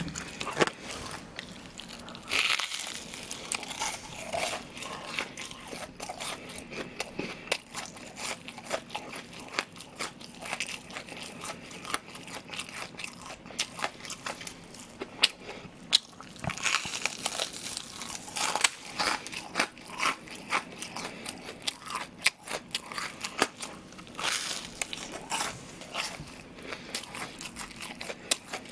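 A person chewing crispy deep-fried breaded pork cutlet (tonkatsu) close to the microphone: irregular crunching and crackling of the breading between the teeth throughout.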